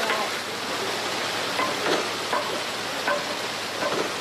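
Steady hissing noise, with faint short voice-like sounds coming through now and then.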